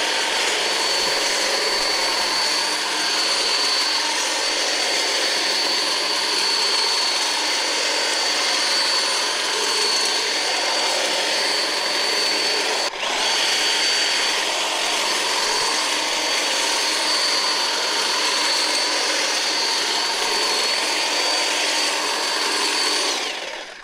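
Atlas 40-volt cordless electric hedge trimmer running steadily while cutting a shrub, its motor and reciprocating blades giving a constant high whine. It cuts out for an instant about halfway through and runs down to a stop near the end.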